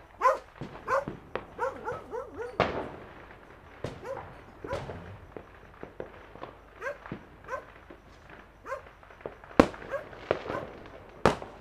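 A dog barking in runs of quick barks amid scattered firecracker and fireworks bangs. Two sharp, loud cracks near the end are the loudest sounds.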